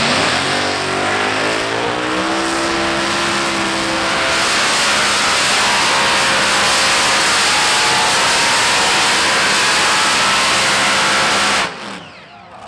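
Heavy modified pulling tractor's engines at full power hauling the sled. The pitch rises over the first couple of seconds, then holds as a steady, very loud noise. It drops away suddenly about a second before the end.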